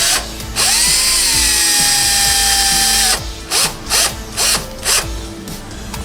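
Power drill run at full speed for about two and a half seconds, its motor whine rising as it spins up and then holding steady before it stops. It is then triggered in four quick short bursts, each whine rising, over background music.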